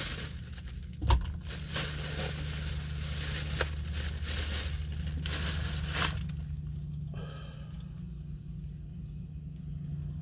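Takeout packaging being handled: irregular crinkling, rustling and sharp clicks for the first six seconds or so, over a steady low hum.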